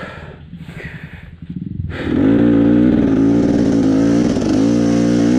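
Enduro motorcycle engine ticking over lower at first, then revving hard about two seconds in and held at high revs with a wavering pitch as the bike fights for grip on a slippery trail climb.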